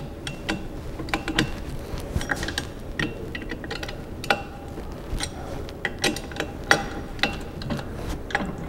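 Irregular metallic clicks and ticks, several a second, as a left bicycle pedal is turned by hand into its crank arm and the crank is handled.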